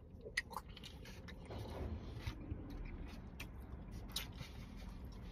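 Faint scrapes and a few small clicks of a plastic fork working through rice and gravy in a foam takeout container, with a person chewing.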